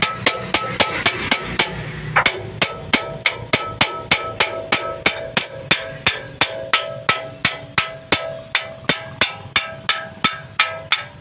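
Hammer striking metal in a fast, even rhythm, about three or four ringing blows a second, with one short pause about two seconds in.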